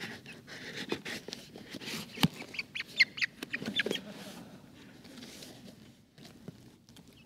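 A pet chicken inside a cardboard box chirps several times in quick succession about halfway through. Scratching and sharp knocks come from its feet and the box flaps being handled.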